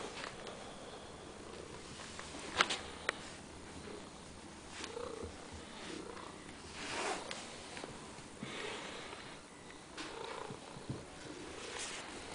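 Domestic cat purring close to the microphone in slow breathy swells, with two sharp clicks about two and a half seconds in.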